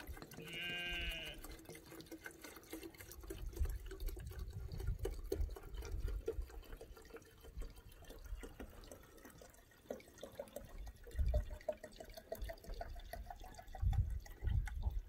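Premixed two-stroke fuel pouring from a can into a chainsaw's fuel tank, a faint trickle whose pitch rises slowly as the tank fills. A farm animal bleats once about a second in.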